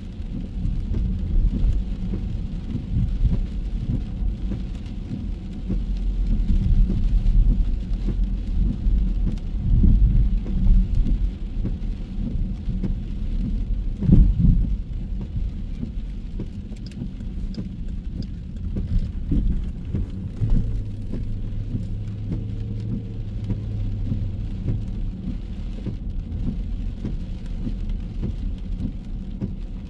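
Rain and city street traffic, heavy with low rumble and a faint steady hiss. There is a sharp thump about halfway through, and a low steady hum from a passing vehicle for a few seconds after the middle.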